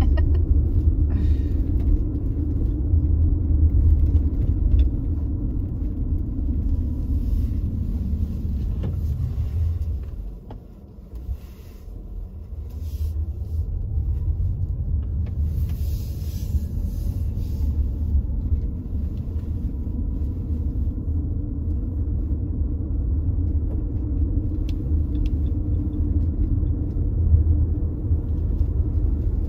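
Car driving, heard from inside the cabin: a steady low rumble of tyres and engine on the road. About ten seconds in it dies down to much quieter for a couple of seconds, then picks up again.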